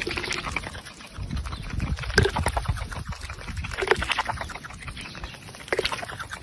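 Mallard hen dabbling water from a cupped hand: a rapid run of wet bill clicks and slurps, with a few louder splashy gulps about every two seconds.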